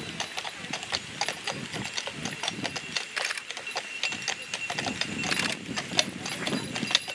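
Hooves of a pair of draft horses clip-clopping at a walk on a hard towpath as they tow a barge, a steady run of irregular sharp hoof strikes.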